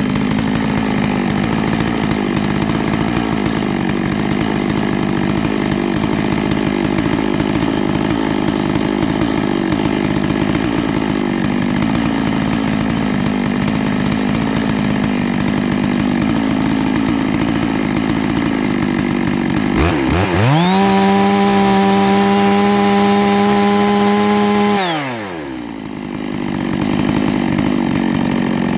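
Neo-tec NS892 two-stroke chainsaw with its carburettor just leaned out a little, running at low speed, then revved to full throttle about two-thirds of the way in, held at a high steady pitch for about five seconds and let drop back to idle.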